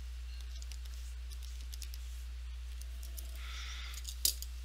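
Faint clicks of TI-30XS MultiView calculator keys being pressed one at a time as a sum is entered and worked out, over a steady low hum. Near the end there is a brief scratchy rustle and one sharper click.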